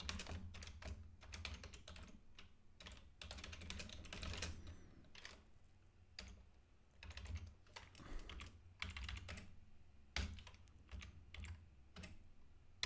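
Typing on a computer keyboard: faint, irregular keystroke clicks, with a pause of about a second just past the middle.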